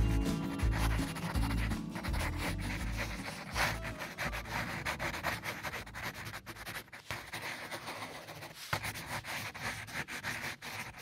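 Coloured pencil scratching on paper in many quick shading strokes. Background music fades out over the first two seconds.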